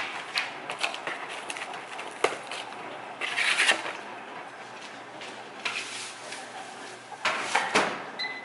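Kitchen handling sounds: scattered clicks and knocks as a paper plate of sopapillas is handled, with a short crinkly rustle about three seconds in and a cluster of knocks near the end.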